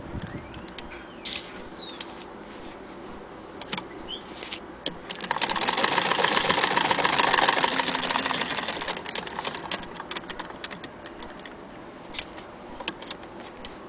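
Hand-crank Singer Model 99K sewing machine stitching through fabric: a fast, even run of clicking that builds from about five seconds in and winds down about four seconds later. Scattered single clicks come before and after it as the machine and fabric are handled.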